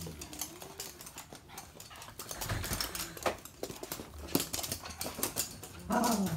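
Toy poodles' claws clicking and skittering on a hard glossy floor as the dogs scamper about, in irregular clusters of quick ticks. A short falling vocal cry comes near the end.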